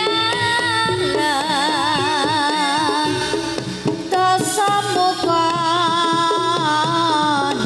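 Live Javanese jaranan music: kendang hand-drum strokes keep a steady beat under a high, wavering melody with heavy vibrato.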